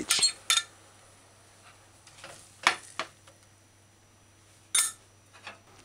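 A spoon knocking and clinking against a stainless steel cooking pot as it stirs shredded cabbage in coconut milk: about five short, separate knocks spread out, the loudest near the end, over a faint steady hum.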